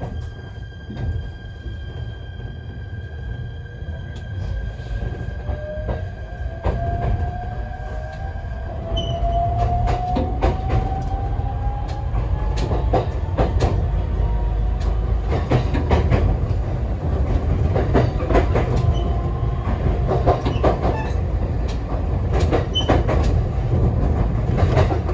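ET127 series electric train pulling away and speeding up, heard from inside at the coupled end of the car: a slowly rising whine over a rumble that grows louder, with sharp clacks of the wheels over rail joints coming faster later on.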